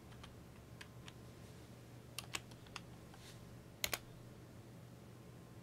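Computer keyboard being typed on: a handful of faint, scattered keystrokes, with a louder pair of key clicks close together about four seconds in.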